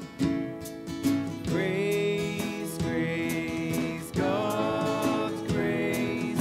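A live church band with acoustic guitar, electric guitar and piano plays a hymn while the singers and congregation sing. A new sung phrase of the chorus comes in about one and a half seconds in.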